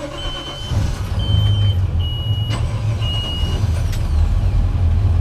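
A heavy engine running steadily with a low rumble that swells a little under a second in. Over it, a short, high-pitched beep repeats about once a second, four times, then stops.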